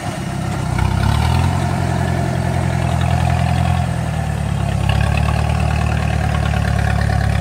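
Farm tractor engine running steadily under load as it hauls a full load of rice sacks up a steep slope. It sags briefly at the start, then picks up about a second in and holds a steady low drone.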